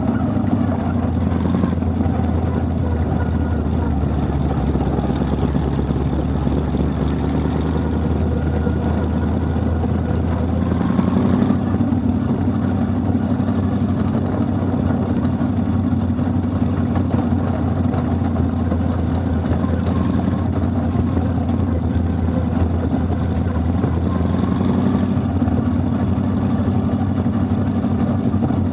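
Vintage modified race car's engine running steadily at low revs, heard from inside the car's open cockpit, with a brief rise about eleven seconds in.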